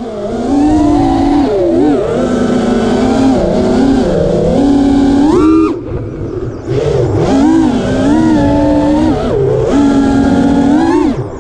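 FPV quadcopter's brushless motors whining, the pitch rising and falling with each throttle punch. The whine drops away for about a second near the middle as the quad tumbles through a flip, then spins back up.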